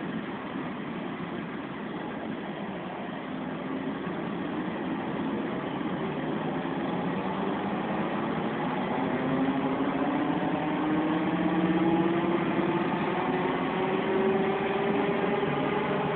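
Volvo B10M bus engine and worn gearbox heard from inside the cabin. A howl rises steadily in pitch from about halfway through and grows louder as the bus picks up speed. The uploader puts this howl down to the worn-out gearbox.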